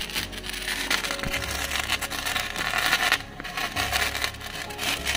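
Pookkutti firework fountains and handheld sparklers burning with a dense, crackling hiss full of small pops, dipping briefly about three seconds in.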